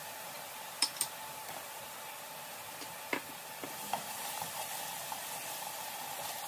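A silicone spatula stirring a mixture in a stainless steel pot, with a few light clicks and knocks against the pot, about 1 s in and again around 3 and 4 seconds, over a steady hiss from the pot on the stove.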